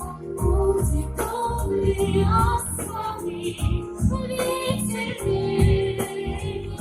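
Backing-track music for a pop song: a steady beat with bass notes and a melody line.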